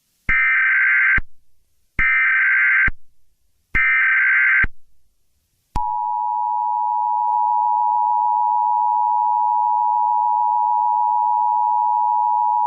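Three short bursts of EAS SAME header data, a harsh warbling screech about a second long each, with pauses of about a second between them. These are followed about six seconds in by the steady two-tone Emergency Alert System attention signal, which holds unbroken.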